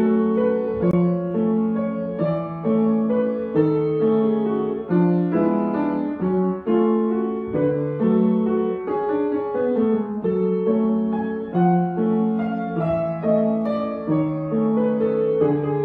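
Upright piano played solo: a slow melody over a lower, repeating accompaniment, notes held and changing about every half second.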